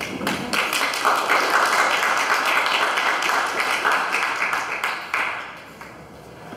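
Small audience applauding with many overlapping claps, building within the first second and dying away about five seconds in.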